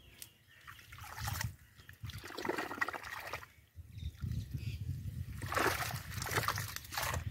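Water trickling and sloshing in several short bursts as hands pull fish out of a wet cast net lying in shallow water.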